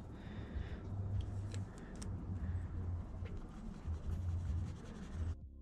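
Paintbrush being dipped in water and brushed over watercolor-pencil swatches on sketchbook paper, with a few light clicks and taps. The sound cuts off abruptly near the end.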